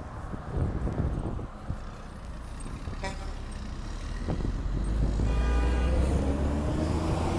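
Road traffic: a motor vehicle passing, its low engine rumble growing louder over the last few seconds, with the engine note rising in pitch.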